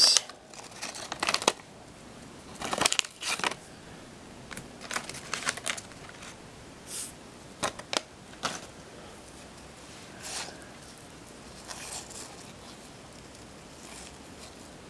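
Wax-paper trading-card pack wrapper crinkling and cardboard sticker cards sliding and flicking against each other as they are handled. The sound comes in short, irregular rustles that thin out in the second half.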